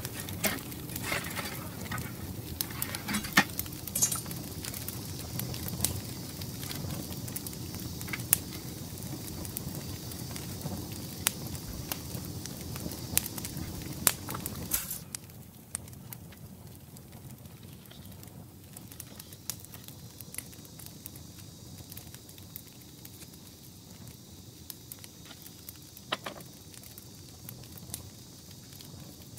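Rapid clicking and crackling with light metallic clinks as a wire rotisserie grill basket on its spit is handled and opened to lift out the grilled fish. About halfway through it cuts to a quieter outdoor background with a faint high hiss and only occasional small clicks.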